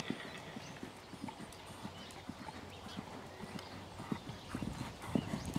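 Horse's hooves beating on a sand arena surface at a canter: a steady run of low hoofbeats that grows louder near the end.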